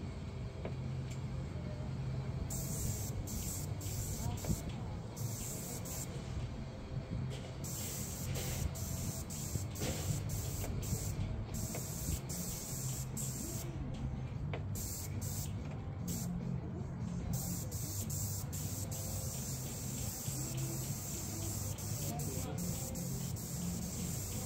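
Paint spray gun hissing in short on-and-off bursts, starting about two seconds in, as the trigger is pulled and released. Under it runs a steady low hum.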